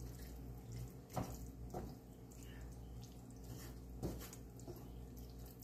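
Wooden spatula stirring a thick corn and tomato sauce in a cast-iron skillet: a few faint wet scrapes and squelches, about a second, nearly two and four seconds in, over a low steady hum.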